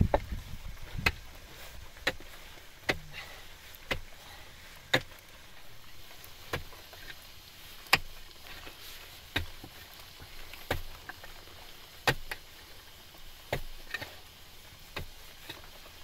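Repeated sharp knocks, about a dozen, roughly one every second and a half, like a tool or object being struck over and over in an uneven working rhythm.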